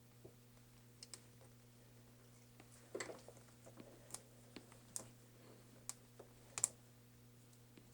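Faint, scattered light clicks and taps of small tools and parts being handled inside an opened laptop, with a short clatter about three seconds in and a sharper click near the end.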